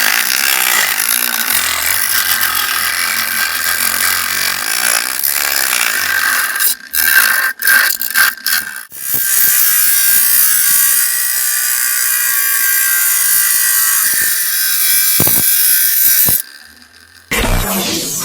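Homemade mini grinder driven by a 775 DC motor, its abrasive wheel grinding with a harsh, steady hiss. The grinding breaks off and restarts several times partway through and stops near the end.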